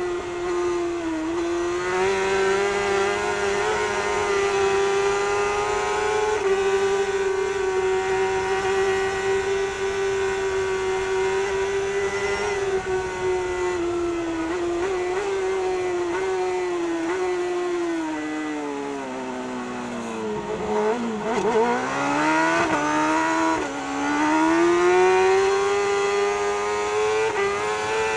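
Kawasaki superbike's inline-four racing engine at high revs, with wind rush on the onboard microphone. The note holds steady and high, drops and wavers as the bike slows about two-thirds of the way through, then climbs again as it accelerates hard near the end.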